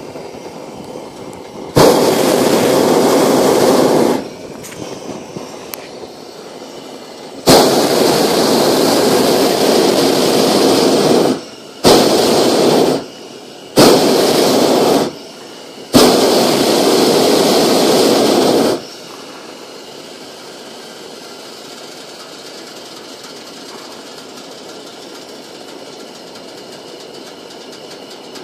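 Hot-air balloon's propane burner firing in five blasts of one to four seconds each, each switching on and off abruptly with a steady rushing roar in between. The burner then falls silent, leaving a quieter steady background.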